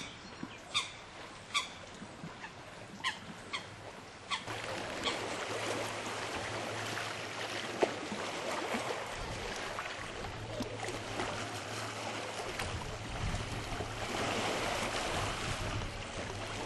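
Short, sharp bird calls repeated about once a second for the first four seconds. A little after that the calls give way to a steady wash of lake-water noise with a low, steady hum under it.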